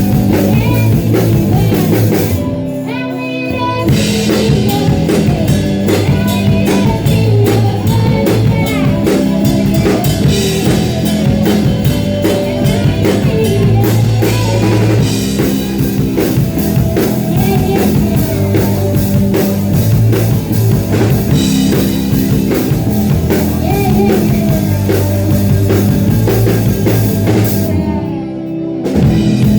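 Live rock music: drum kit and electric guitar with a sung vocal. The band briefly drops out about three seconds in and again near the end.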